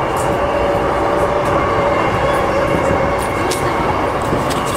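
Interior of a JR Yokohama Line E233-series electric train running: a steady rumble with a constant motor hum, and a few sharp clicks of the wheels over rail joints.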